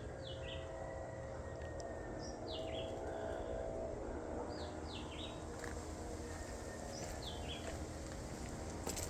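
A bird singing a short phrase of three or four high notes stepping down in pitch, repeated about every two and a half seconds, over a steady low rumble.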